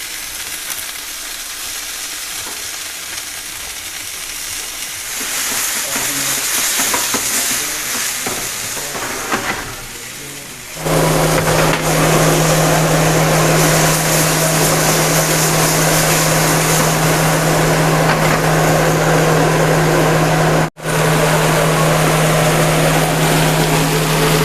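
A steady hiss that swells after about five seconds. About eleven seconds in it gives way abruptly to a loud, steady machine hum, cut off for an instant about twenty seconds in.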